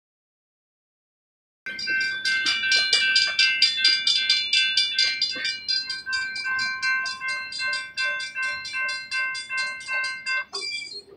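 Railroad crossing warning bells ringing rapidly, about five strikes a second, with several bells of different pitch overlapping. The ringing starts abruptly about two seconds in, after dead silence, and stops shortly before the end.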